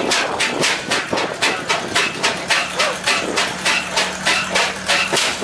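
Steam engine running, its exhaust steam chuffing up the smokestack in an even rhythm of about four beats a second.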